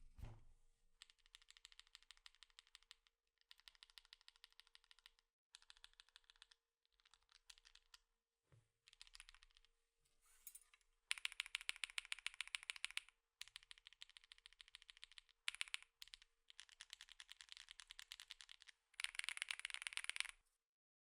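Fast typing on an aluminium Epomaker Tide 65 mechanical keyboard with its stock Epomaker Lemon linear switches: quick runs of key clacks a second or two long, broken by short pauses, louder in the last half. A dull thud at the very start.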